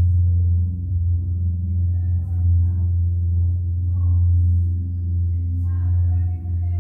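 A deep, steady bass drone, gong-like, with faint scattered higher tones over it: a demo soundtrack played loud through a Pioneer HTP-076 home theater system with its subwoofer, heard in the room.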